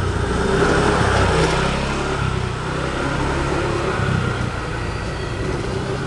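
A motor vehicle's engine running, growing louder over the first second and then holding steady.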